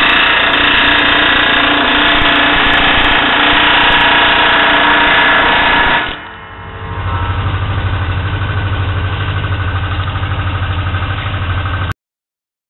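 A WNS AH20 pneumatic air hammer rattles rapidly against a Pittsburgh lock seam in sheet metal, hammering the seam closed, with ringing metal tones over the fast blows. About six seconds in it drops away briefly, then comes back lower and deeper, and it cuts off suddenly near the end.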